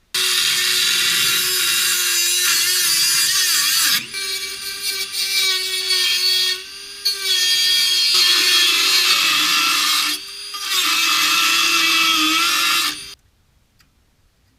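Handheld power tool cutting into the rusted steel of a VW bus's sill, its pitch wavering as it loads up. It eases off briefly about 4, 7 and 10 seconds in and cuts off near the end.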